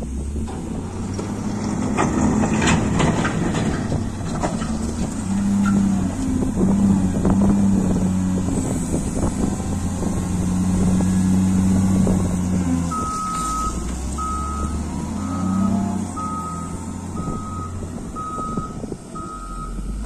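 Caterpillar 950 wheel loader's diesel engine running loud under load as the bucket is driven into a pile of dirt. About two-thirds of the way through, its reversing alarm starts beeping steadily, a little over one beep a second, as the loader backs away.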